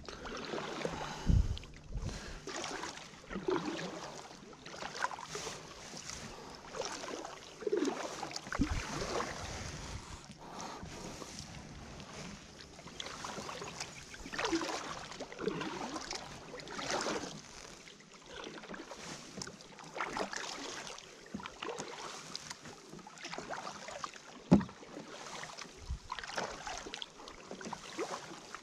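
Kayak paddle strokes: a double-bladed paddle dipping and pulling through river water in a steady rhythm, with splashing and dripping at each stroke. A few sharp low thumps, the loudest near the end.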